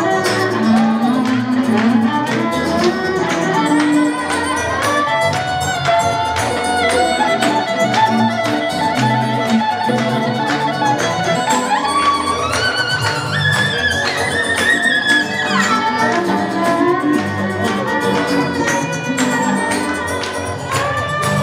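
Instrumental break of a pop song: a violin plays the melody over a steady backing beat, climbing to its highest notes about twelve to fifteen seconds in.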